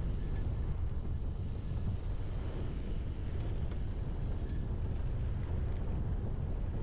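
Steady wind rumble on the microphone of a camera carried by a moving rider.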